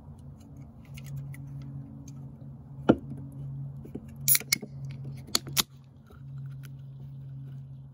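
An aluminium drink can's pull tab snapping open with one sharp crack about three seconds in, followed by two quick clusters of short clicks and clacks. A steady low hum runs underneath.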